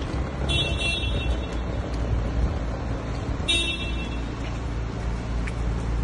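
Two short, high-pitched toots about three seconds apart, over a steady low rumble.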